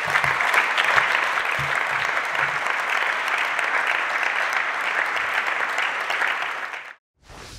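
A large seated audience applauding steadily, then cutting off abruptly about seven seconds in.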